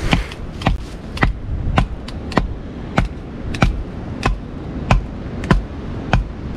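A knife being batoned through a knotty piece of pine: a wooden baton strikes the back of the blade again and again, about eleven sharp knocks a little under two a second.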